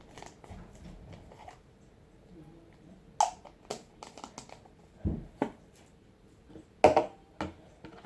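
Slime being mixed in a bowl with a utensil: scattered sharp clicks and knocks of the utensil and containers, about half a dozen, the loudest about seven seconds in.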